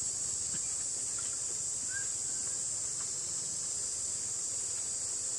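Steady, high-pitched chorus of insects, an unbroken drone, with a brief faint chirp about two seconds in.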